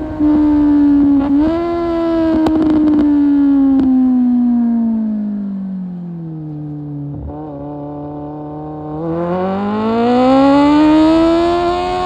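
Kawasaki Z750 inline-four engine through an Akrapovic exhaust, heard while riding. The revs hold high with a quick gear change about a second in, fall steadily as the bike slows, stay low for a couple of seconds, then climb again near the end.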